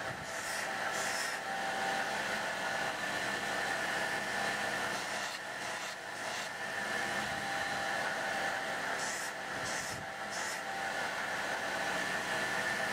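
Belt grinder motor and sanding belt running steadily with a constant hum and hiss, while the flat side of a small steel knife blade is pressed against the moving belt, adding short brighter hissing patches of grinding.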